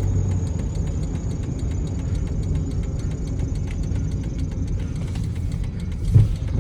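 Car in motion heard from inside the cabin: a steady low engine and road rumble, with a faint regular ticking of the turn signal. A short thump about six seconds in.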